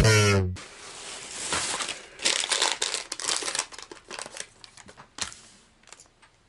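Thin plastic shopping bag and lure packaging crinkling irregularly as they are handled, dying away about a second before the end. Just at the start, the last note of electronic music cuts off.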